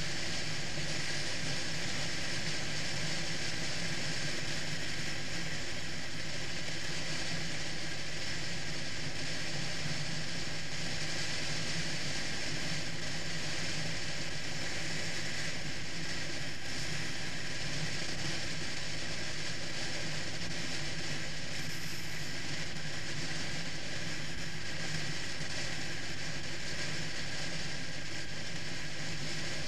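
Triumph Rocket III motorcycle's three-cylinder engine running at a steady cruise, with a constant rush of wind noise over it.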